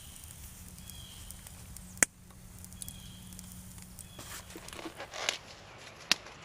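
Wood campfire crackling quietly, with one sharp pop about two seconds in and a few smaller crackles and snaps near the end.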